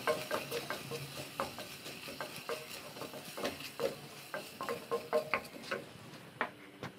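Wooden spatula stirring chicken pieces and curry powder in a stainless steel pot: irregular scrapes and knocks against the pot, some ringing briefly, over a light sizzle of frying.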